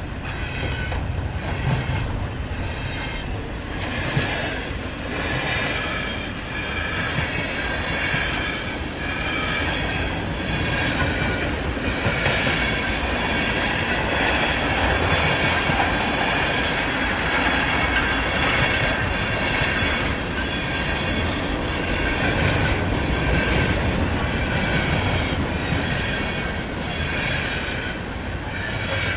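Loaded CSX manifest freight train's cars rolling past: a steady roar of steel wheels on rail, with regular clacks over the rail joints and high wheel squeal running through it.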